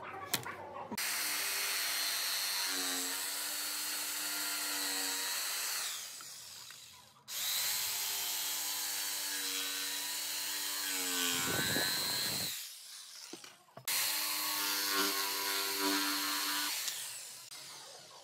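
Corded jigsaw cutting a curved line through a wooden board, in three runs of about four to five seconds each, the motor's pitch dropping as it winds down between runs.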